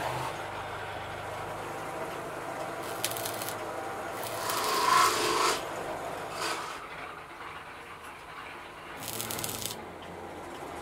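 Electric stick welding on a steel angle-iron frame: short bursts of crackling, hissing arc noise, a second or so each, the loudest about four to five and a half seconds in, over a low steady hum.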